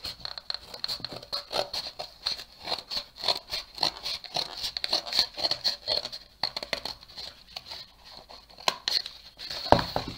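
Scissors cutting through a cardboard egg carton in a quick string of short snips, with the box rustling as it is handled.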